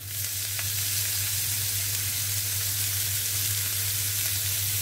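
Pieces of pollock dropped into hot olive oil with softened onion and garlic in a nonstick frying pan, setting off a steady sizzle that swells as the fish goes in. A steady low hum runs underneath.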